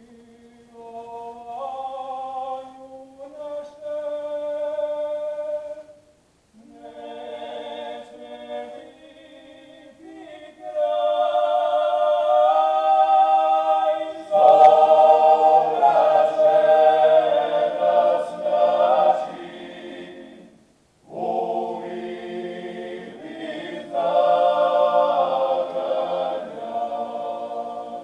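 Male klapa group singing a cappella in close harmony: a single voice leads in and the others join, in phrases broken by short pauses. The singing grows fuller and louder about halfway through.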